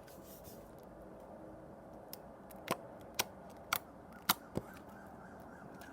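Holographic slime being squeezed and worked by hand, giving about six sharp clicks and pops over a few seconds, starting about two seconds in.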